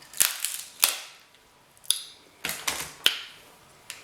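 King crab leg shells being cracked and snapped apart by hand: about six sharp, irregular cracks.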